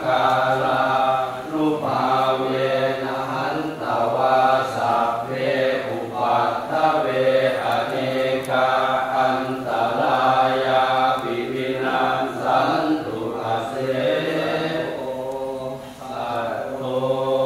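Buddhist chanting recited in unison by a group, a steady near-monotone on one low pitch, phrased with short breaks for breath.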